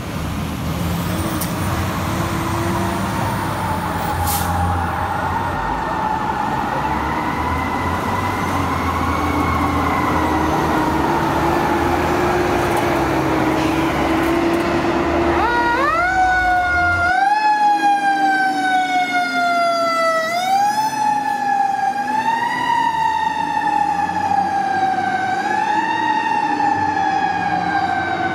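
Fire trucks' Federal Q mechanical siren. For about fifteen seconds it holds a long, slowly wavering wail over the low rumble of the truck's engine. It is then pulsed, spinning up quickly and winding down slowly about every two and a half seconds.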